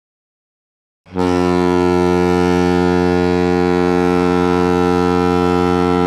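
BIK Karlskoga's ice hockey goal horn: one long, steady, low blast that starts about a second in and holds at full strength.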